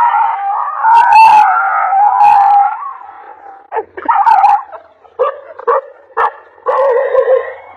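Dog howling and barking: one long drawn-out howl for the first three seconds, then a series of short barks, the last one held longer.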